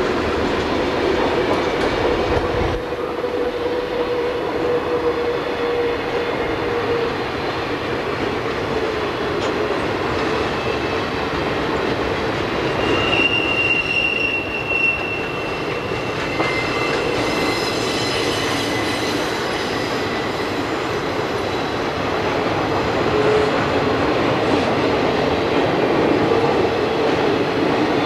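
Freight cars of a Conrail freight train rolling past on curved track, a steady rumble with wheel clatter. Steel wheels squeal on the curve at times, most sharply about halfway through.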